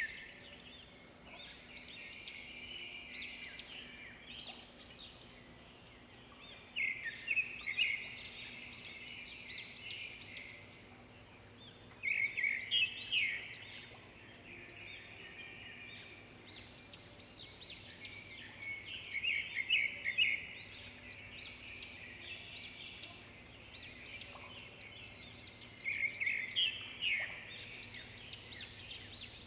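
Birds singing: loud bursts of quick chirping trills every six or seven seconds, with quieter twittering in between.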